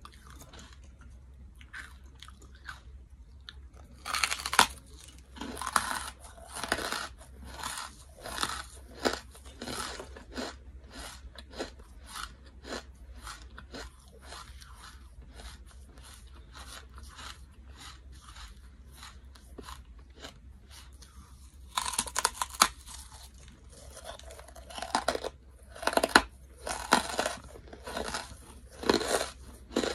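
Close-up biting and chewing of big chunks of charcoal: crisp, crackly crunches in dense bursts a few seconds in and again through the last third, with softer, sparser chewing crunches between.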